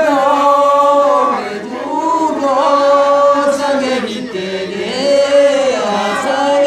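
Unaccompanied male singing of a Manggarai dere landu traditional song, in long held notes that waver and slide between pitches.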